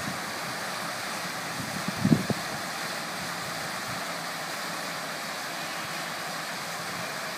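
Steady splashing and rushing of a tiered fountain's water jets and cascades. A brief low thump about two seconds in.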